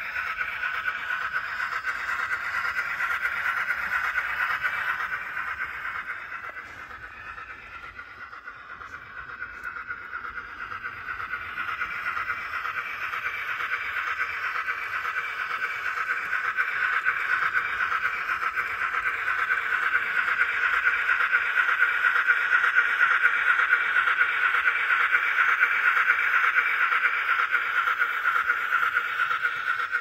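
Sound-fitted N gauge model of a BR Standard Class 5 steam locomotive running, its onboard speaker playing a continuous steam exhaust beat, thin and without bass. It fades for a few seconds about six seconds in, then grows louder again.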